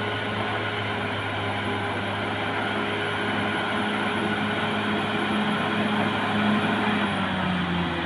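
Diesel engine of a Caterpillar D6R XL bulldozer running steadily under work, its pitch shifting slightly near the end.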